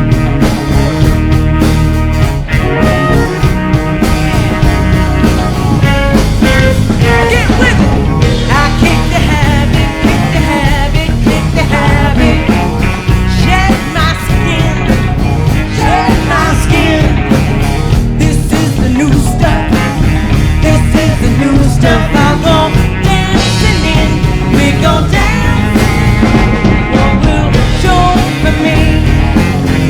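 Live rock band playing a song, with drums, bass and guitars.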